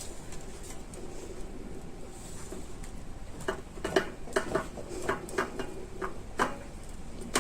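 Light clicks and taps of kitchenware, most of them in a quick run in the second half, as cooked shrimp are laid out over a pizza.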